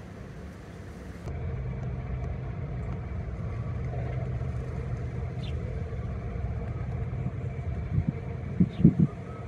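Steady low engine rumble that gets louder about a second in, with a few low thumps near the end.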